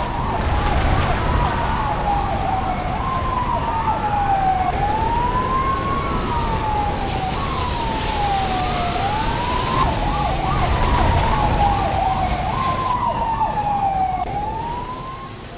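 Fire truck siren wailing, its pitch sliding down and then sweeping back up about every two and a half seconds, with a second siren faintly overlapping and a low rumble underneath. It fades near the end.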